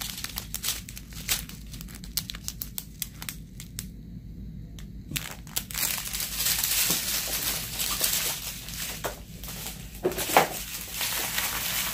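Thin clear plastic bags crinkling as strips of small sealed bags of diamond painting drills are handled: sharp separate crackles for the first five seconds, then denser continuous crinkling, with a short louder rustle near the end.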